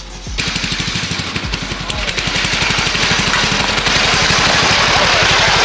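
Riding lawn mower's engine running, a rapid even firing beat that grows louder over the first few seconds and then holds steady.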